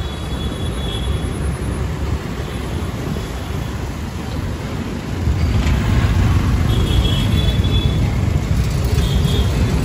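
Busy road traffic: a steady low rumble of vehicle engines and tyres that grows louder about five seconds in, with a few brief high-pitched tones over it.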